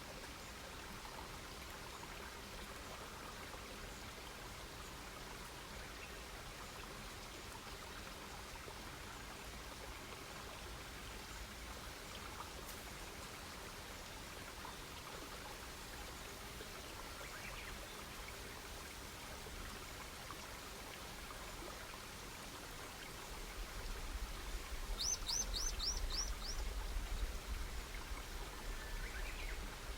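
Campfire burning with a steady hiss and scattered faint crackles. About 25 seconds in, a bird gives a quick run of five high chirps, and a low rumble comes in near the end.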